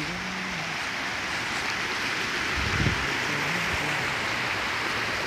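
Small mountain stream rushing and splashing over rocks, a steady hiss of water, with a dull thump about three seconds in.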